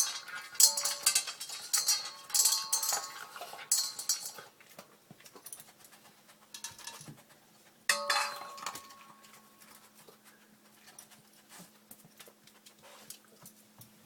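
A small Chihuahua/Italian Greyhound mix dog wolfing down his food from a dish, the dish clinking and rattling against the floor in quick clusters. It is busiest for the first four seconds and comes again about eight seconds in, with fainter clicks between and after.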